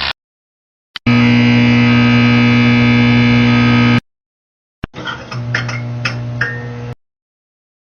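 Two separate electrical sound effects: a click, then a loud steady electrical buzz for about three seconds that cuts off suddenly; after a short silence, another click and a quieter electrical hum with sharp crackling snaps for about two seconds.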